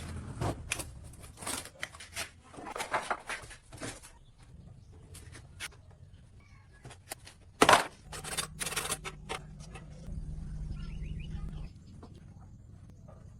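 Irregular scraping and knocking strokes, with one sharp loud knock a little past halfway, followed by a low steady hum for about four seconds.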